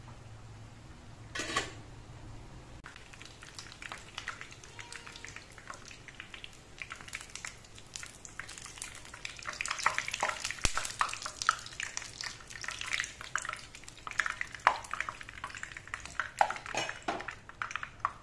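Potato fritters (perkedel) frying in hot oil in a nonstick wok: a busy crackle of sharp pops that grows denser from about ten seconds in, with a spatula and a slotted ladle clinking and scraping against the pan as the fritters are lifted out. A single knock comes about a second and a half in.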